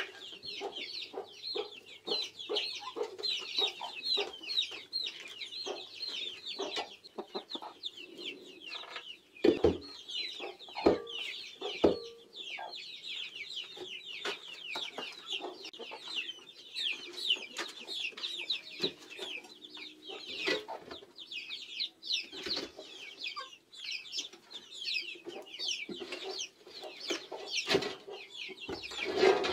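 Chickens clucking and calling, over a dense, steady chatter of short high-pitched chirps. A few sharp knocks stand out, three close together about a third of the way in and more later on.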